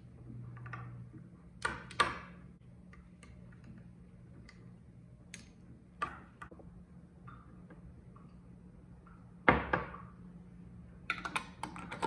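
A metal spoon clinking against the inside of a glass jar of pickled onions in brine as it is stirred: a few separate knocks, the loudest about three quarters of the way through. Near the end comes a quick run of clicks as a metal lid is set on the glass jar. A faint steady low hum sits underneath.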